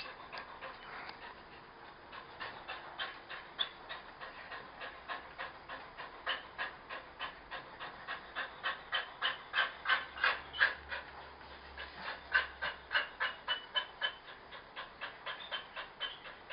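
A large dog panting rhythmically with an open mouth, about three breaths a second, getting louder through the middle.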